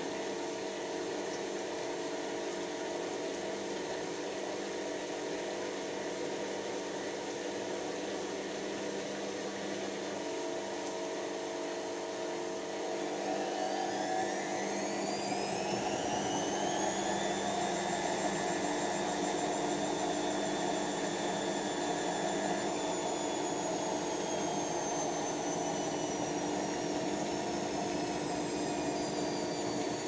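Pro Action A105QW washing machine in its final 1000 rpm spin, its drum motor giving a steady mechanical hum. About 13 seconds in, the motor's whine rises in pitch over a few seconds as the drum speeds up, then holds as a high whine.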